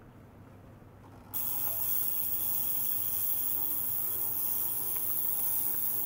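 A faint low hum, then about a second in a loud, steady hiss starts suddenly and holds: an ultrasonic cleaning bath running, with its water cavitating around a glass jar fed by a small circulating pump.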